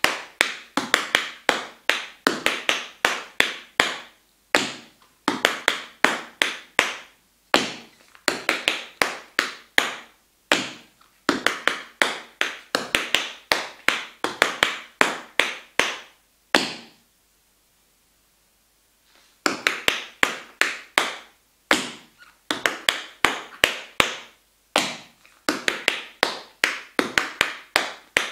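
Metal taps on tap shoes striking a wooden floor: quick phrases of rapid, crisp taps with short breaks between them and one longer pause of about two seconds a little past the middle.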